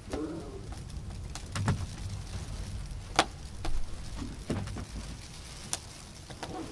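Scattered light knocks and clicks, about half a dozen spread out, over a low steady rumble.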